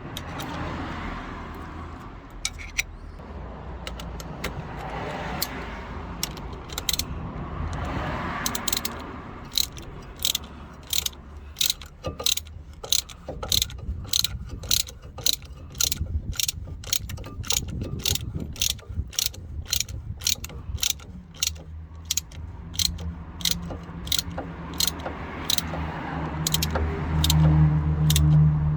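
A ratchet wrench clicks in steady strokes, about two clicks a second, as it turns the drive screw of a brake caliper rewind tool to wind back the caliper piston. A low steady hum joins near the end.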